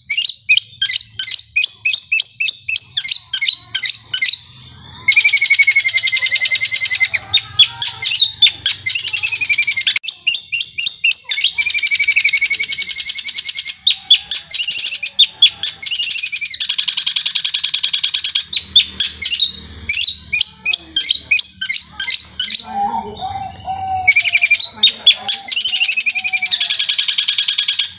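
Long-tailed shrike (cendet) singing loudly in a fast roll. Runs of rapid, sharp repeated notes alternate with dense, buzzy trills of one to three seconds each, a rolling song likened to a sewing machine.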